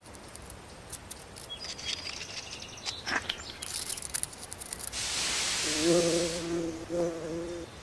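Cartoon sound effects for a growing, blooming plant: light clicks and short high chirps, then a hissing whoosh about five seconds in. Just before six seconds a steady bee-like buzz starts and keeps going, with brief breaks.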